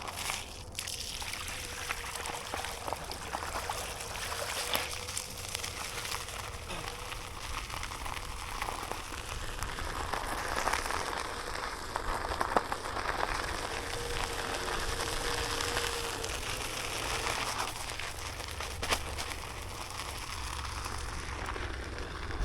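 Onewheel rolling: an even hiss of tyre and wind noise with scattered clicks and ticks, and a faint steady whine that comes and goes.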